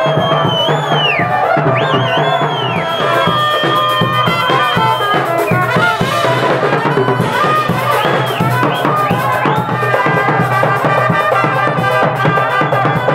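Live band music: a trumpet playing a melody with bends in pitch over a drum kit and cymbals keeping a steady beat.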